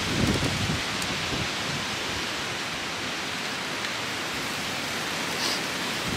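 Wind blowing over the microphone, with low gusts near the start, over the steady hiss and crackle of a wood campfire.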